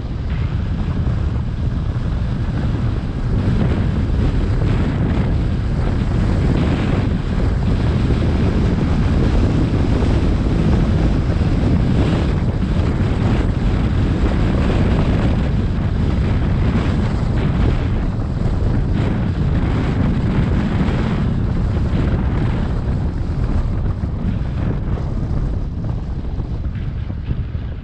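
Wind buffeting the microphone: a loud, low rumbling noise that swells and eases in gusts throughout.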